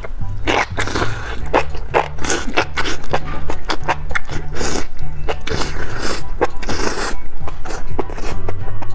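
Slurping and chewing of enoki mushrooms from a chili-oil broth, many short wet mouth sounds in quick succession, over background music with a steady repeating bass line.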